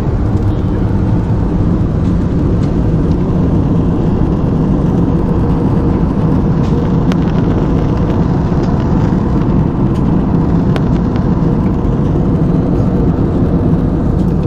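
Steady cabin noise of a jet airliner in flight: an even, loud, low rush of engines and airflow.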